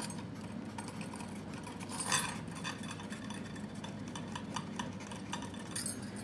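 Light taps and clicks of a pen or marker writing, with one louder tap about two seconds in, over a steady low hum.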